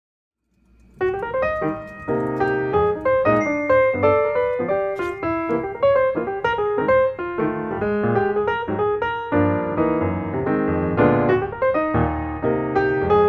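Background piano music, a quick run of many notes over a lower bass part, coming in about a second in after silence.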